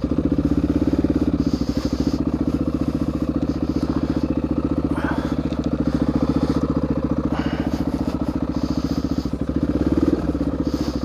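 Dirt bike engine idling steadily with a fast, even pulse, its revs picking up briefly near the end.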